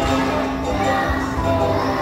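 Music playing: a song with steady sustained notes and a low bass tone.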